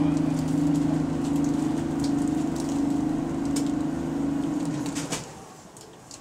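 Bus air compressor running with a loud, steady drone, then cutting out abruptly about five seconds in with a short hiss.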